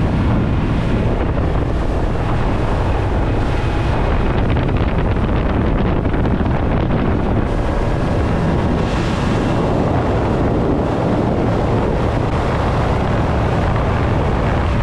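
Motorboat running at speed over open water: a steady rush of wind across the microphone, with the churn of the wake and the engine underneath.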